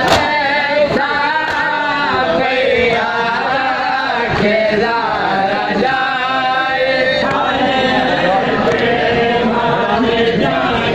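A noha (Shia lament) chanted by a group of men in unison. Open-handed slaps on bare chests (matam) keep time under the chant.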